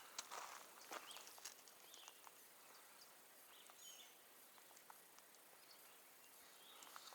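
Near silence: faint outdoor quiet with a few soft bird chirps and some light ticks in the first second or two.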